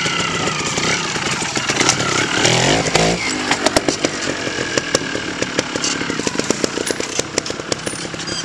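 Trials motorcycle engine revving up about two and a half seconds in as the bike moves off, then running with quick, uneven throttle blips.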